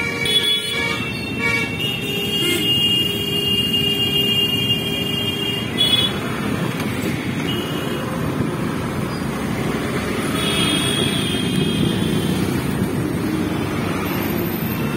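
Road traffic running steadily, with vehicle horns honking over it. One horn is held for several seconds, starting about two seconds in, and shorter honks come later.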